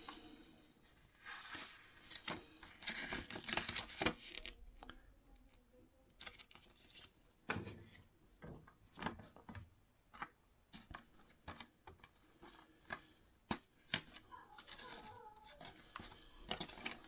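Handling noise of paper and a small cardboard box: a paper instruction manual unfolded and handled, then the box's white paper insert lifted out. Short rustles alternate with scattered taps and clicks of fingers on card, with one sharper click a little after the middle.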